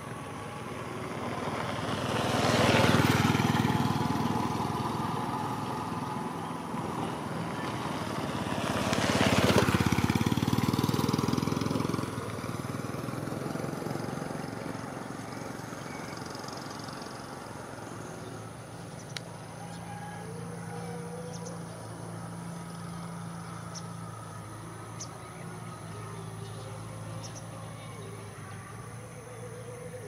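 Two vehicles passing close by, each growing louder and then fading, the second about six seconds after the first. Later a faint, steady low engine hum.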